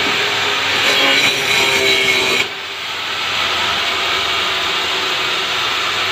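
Handheld angle grinder with a cutting disc running and cutting into a blue plastic barrel, a steady harsh grinding. It drops off abruptly about two and a half seconds in and then carries on.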